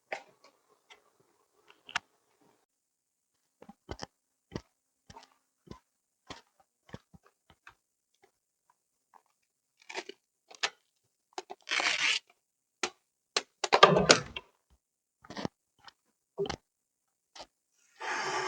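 Scattered sharp clicks and taps of objects being handled, with two short crunching, crinkling bursts near the middle, the second one the loudest.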